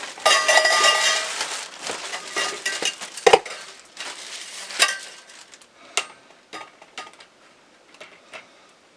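Chrome metal garment-rack bar scraping and ringing for about a second, then a run of sharp knocks and clicks of metal bars and plastic parts being handled and fitted together, thinning out toward the end.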